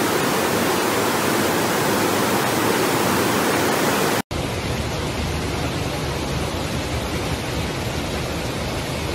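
Floodwater cascading down a flight of stairs, a dense steady rush of water. About four seconds in it cuts out for an instant and gives way to a duller, deeper rush of floodwater.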